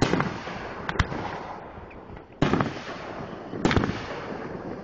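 Aerial firework shells bursting overhead: a string of sharp booms about a second or so apart, each followed by a long fading echo.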